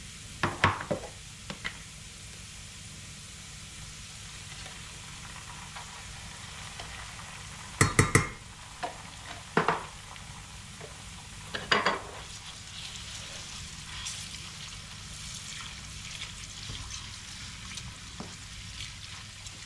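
Food sizzling steadily in a frying pan, with a few sharp knocks and clatters of kitchen utensils and containers, the loudest about eight seconds in and another near twelve seconds.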